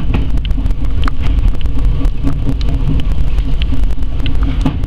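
Electric commuter train running along the track, heard from inside the driver's cab: a steady low rumble with many short, irregular clicks and knocks from the wheels on the rails.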